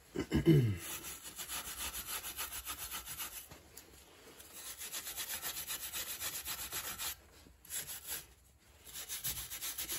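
Hand wire brush scrubbing surface rust off a steel wheel-hub face in quick back-and-forth strokes, with short pauses near the end. This is the hub being cleaned so a new brake rotor sits flat.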